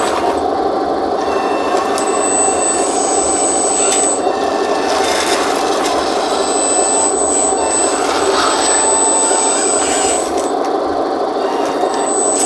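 A 1:14 scale RC hydraulic skid steer loader's electric hydraulic pump running with a steady hum. A thin high motor whine cuts in and out several times.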